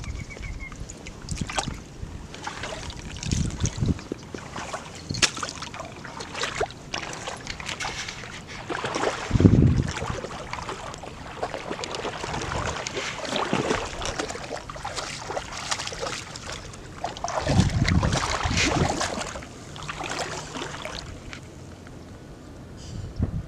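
Wind buffeting the microphone in gusts, the strongest about three and a half, nine and a half and eighteen seconds in, over rustling and light water sounds.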